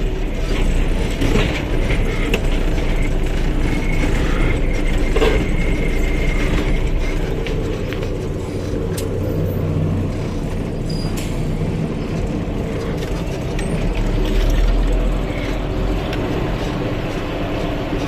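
Water-tanker truck driving over a dirt track, heard from inside the cab: the engine runs steadily under constant rattling and clicking from the cab and loose fittings.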